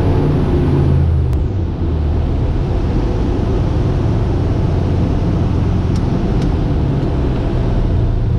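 Rider MD3 ultralight's engine winding down as it is shut off in flight, fading out about a second and a half in. What remains is a steady rush of airflow over the cockpit as the aircraft glides engine-off.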